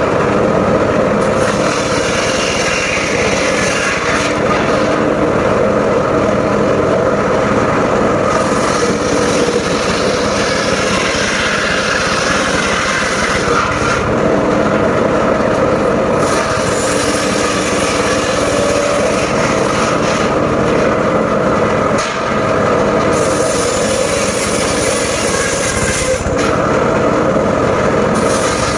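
Engine-driven mobile circular sawmill running steadily while its blade rips mahogany and waru logs into boards. A higher hiss from the cut comes and goes several times over the steady machine hum.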